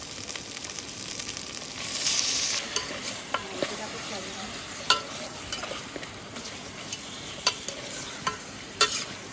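Raw chicken pieces sizzling in hot oil with fried onion and tomato in an aluminium pot, just added to the masala for a chicken curry. A metal spoon stirs them, with several sharp clinks against the pot in the second half.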